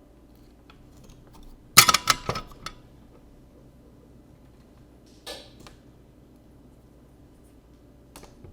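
A burst of small hard clicks and clatter about two seconds in, then a shorter clatter a few seconds later and one more click near the end, over a low steady hum: small tools being handled on a workbench.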